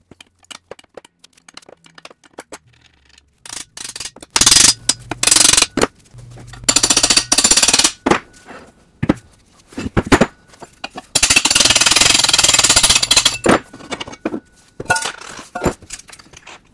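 A steel nut and bolt being worked loose on the belt grinder's tilting hinge: scattered metal clinks, then three runs of fast, even metallic rattling as the nut is run off, the last and longest a few seconds before the end, followed by a few more clinks as the steel parts are handled.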